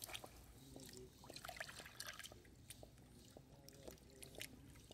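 Faint small splashes and trickles of shallow water stirred by feet and then by hands dipping into it, with scattered light drips.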